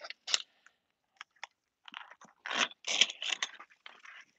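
Hook-and-loop straps of a JAS Knee flexion brace being pulled open and handled, heard as short crackling rips and scrapes. They come in a cluster just after the start, a few around a second in, and a denser run from about two to three and a half seconds in.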